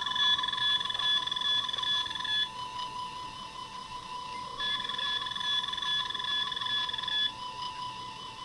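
Electronic scanning sounds from the sound chip of a Star Trek Mark X medical tricorder prop: a fast warbling beep held near one pitch, with a higher, brighter beeping layer that joins it twice for a couple of seconds each time.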